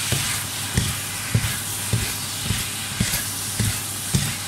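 Vegetables sizzling in a hot wok as they are tossed with two wooden spatulas, with a steady rhythm of low knocks from the spatulas, nearly two a second. The seasoning sauces are being stirred through the stir-fry.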